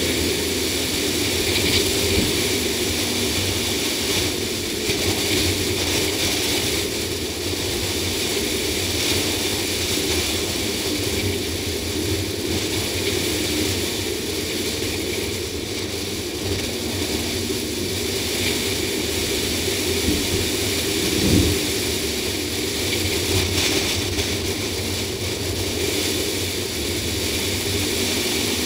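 Driving noise picked up by a hood-mounted action camera on a Ford Explorer V8 under way: a steady mix of wind rush over the camera housing, tyre and road noise, and the engine running. A single brief thump about two-thirds of the way through.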